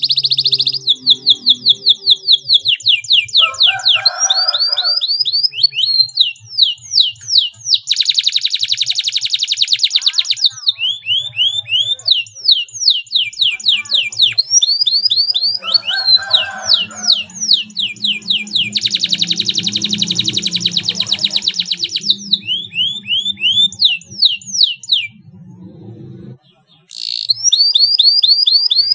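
Domestic canary singing a long song of fast trills and tight rolls: runs of quick, repeated high sweeping notes, alternating with stretches of very rapid rolling notes. There is a brief pause a couple of seconds before the end.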